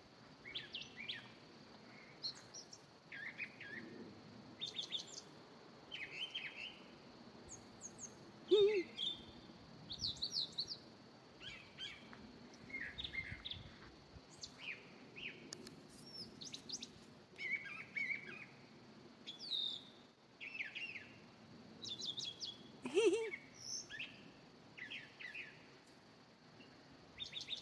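Wild birds chirping and singing, short high notes and trills all through, with two louder calls about 9 and 23 seconds in.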